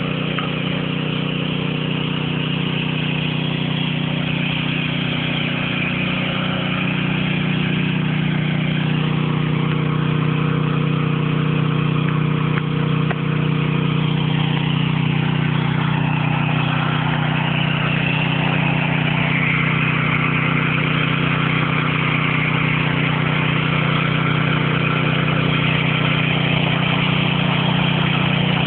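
An engine running steadily at an even speed, a constant hum with no change in pitch.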